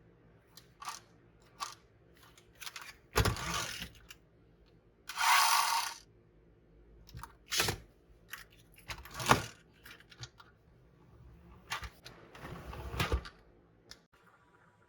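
Handling noises from unboxing a diecast model car: scattered clicks and knocks, with several short rustling or scraping bursts, the longest lasting about a second around the middle.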